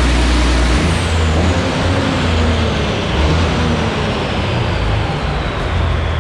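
Caterpillar 6NZ inline-six diesel on a chassis dyno at the end of a full-load pull. The steady heavy engine note drops off about a second in, and a high whine falls slowly in pitch as the engine and rollers wind down.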